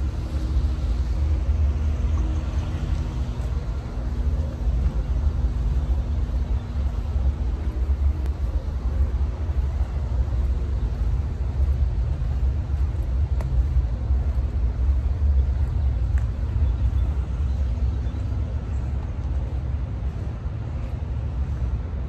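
Steady low outdoor rumble of wind on the phone microphone with distant traffic, and a faint steady hum in the first few seconds.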